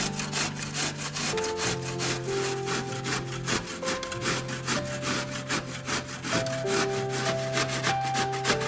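Zucchini being grated by hand on a stainless steel box grater: a quick, regular run of scraping strokes. Soft background music with held notes plays underneath.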